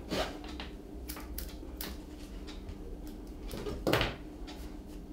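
Hair being plucked from an Airedale terrier's wiry coat in hand-stripping: a series of short sharp snaps, several in the first two seconds and the loudest about four seconds in.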